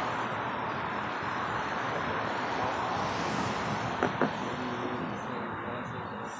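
Steady rushing background noise, with two quick sharp clicks close together about four seconds in.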